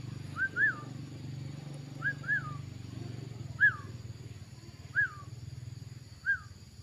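A bird's short whistled notes, each rising then falling, a quick pair at first and then one about every second and a half, over a low steady hum.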